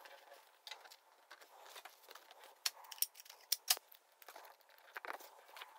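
Hands handling thin card and double-sided tape: faint paper rustling and crinkling, with a few sharp little ticks about halfway through.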